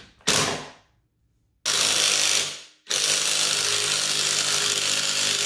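Impact wrench hammering on a dirt bike's flywheel nut: two short blips, then a burst of about a second, then a longer run of about three seconds as it breaks the nut loose. The nut was set with red Loctite and tightened far more than needed.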